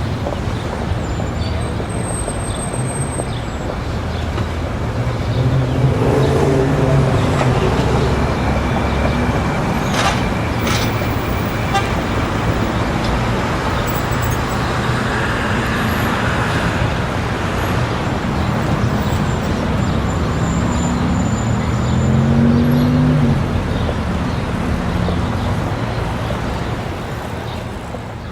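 Busy city street ambience: a steady wash of traffic with passing vehicles, occasional car horns and the murmur of a crowd, fading out near the end.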